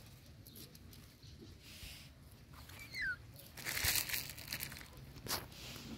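Dry fallen leaves crackling and rustling underfoot, loudest in a burst about four seconds in and again near the end.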